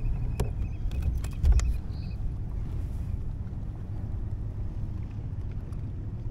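A few clicks and a low thump in the first two seconds as a freshly landed porgy is handled and unhooked on a kayak, over a steady low rumble of wind and water.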